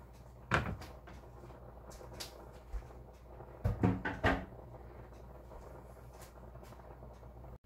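Knocks of kitchen handling: one sharp knock about half a second in, then a quick run of knocks and bumps around four seconds in, over a low steady hum.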